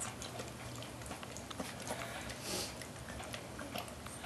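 A Weimaraner puppy licking and chewing peanut butter out of a rubber Kong toy: faint, irregular wet smacks and clicks, with one short breathy snuffle about two and a half seconds in.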